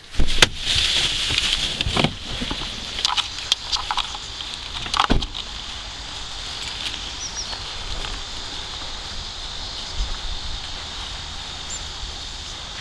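A steady high-pitched insect chorus, with several knocks and clunks from the camera being handled during the first five seconds, the loudest at the very start.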